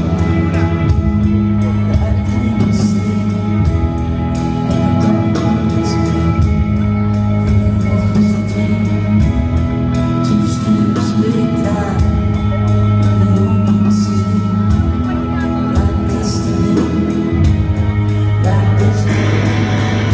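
Live rock band playing through a song: held bass notes changing every couple of seconds under guitar chords and steady cymbal strokes, with the guitars getting fuller near the end.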